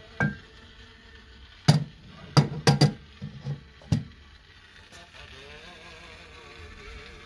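Sharp knocks and clicks of a 1943 toy PPSh-41, with a wooden stock and a metal drum, being handled and laid into a wooden box: about eight irregular knocks in the first four seconds. A faint wavering tone follows near the end.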